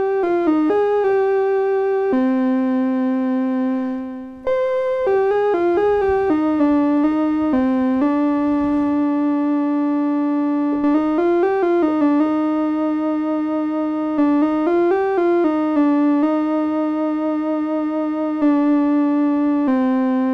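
Moog-style modular analog synthesizer (Synthesizers.com modules) playing a slow line of held notes, its oscillator pitch-modulated by a triangle-wave LFO on the linear frequency input to give a gentle vibrato. The notes are bright and buzzy, with a short gap about four seconds in and a few quick runs of notes along the way.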